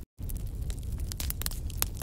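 Wood fire burning in a fireplace: logs crackling with many sharp, irregular pops over a low rumble of flame. The sound cuts out completely for a split second at the very start.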